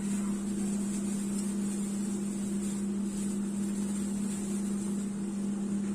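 Steady low hum of an electrical appliance or motor, even in pitch and level.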